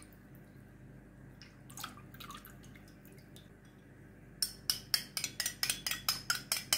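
Coconut milk pouring faintly into a glass mixing bowl. From about four seconds in, a fork clinks rapidly against a small ceramic bowl, about six strikes a second, as egg is beaten.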